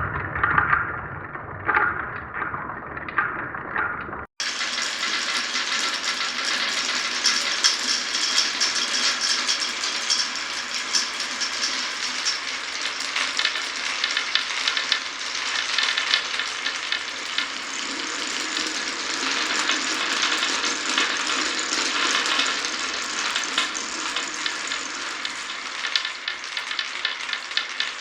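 Many glass marbles rolling and clattering together along a marble run, a dense continuous stream of tiny clicks. It follows a sudden cut about four seconds in; before the cut, fewer marbles knock and rattle more irregularly.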